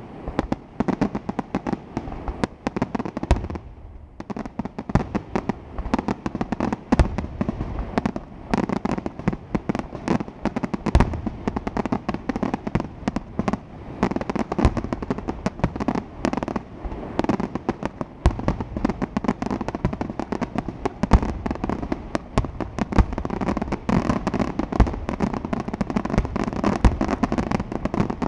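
Aerial fireworks display: shells bursting in a rapid, continuous barrage with crackling between the bangs, easing briefly about four seconds in and getting denser and louder near the end.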